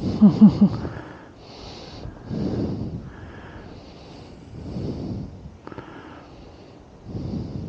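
A person breathing close to a clip-on wireless microphone: slow, soft breaths, the strongest about every two and a half seconds.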